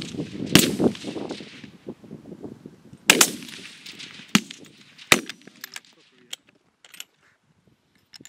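Rifle shots on a firing line: three loud cracks, each with a short echo, about half a second, three seconds and five seconds in, and a lighter shot between the last two. Small sharp clicks follow near the end, fitting a bolt-action rifle's bolt being worked.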